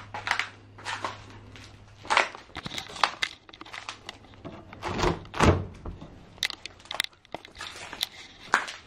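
Irregular knocks and thuds in a small room, with a heavier pair of low thumps about five seconds in. A low steady hum stops about two seconds in.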